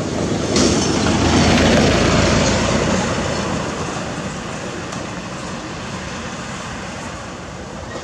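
Loud, even rushing noise that swells sharply about half a second in, peaks, then slowly dies away.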